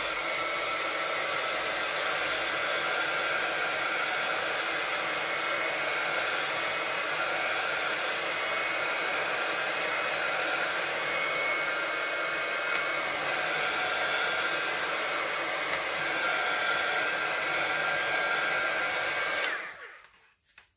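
Handheld craft heat tool (embossing heat gun) blowing steadily, drying freshly applied ink on a craft embellishment, with a faint whine from its fan motor. It is switched off near the end and its fan winds down over about a second.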